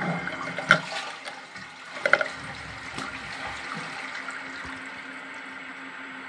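Western toilet cistern flushing during a test of its just-repaired push button: a couple of sharp clicks in the first two seconds, then a steady rush of running water.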